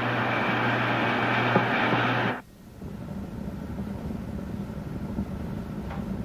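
Steady hiss with a low hum from an old film soundtrack, cut off abruptly about two and a half seconds in as the picture changes, leaving a fainter low rumble.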